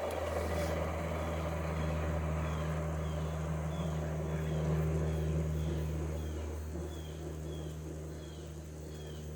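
Frigidaire window air conditioner running with a steady low hum from its compressor and fan; a higher part of the hum fades about two-thirds of the way through. Faint high chirps repeat about twice a second over it.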